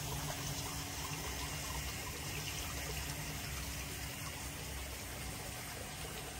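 Shallow stream running and trickling over stones, a steady even water sound, under a steady low hum.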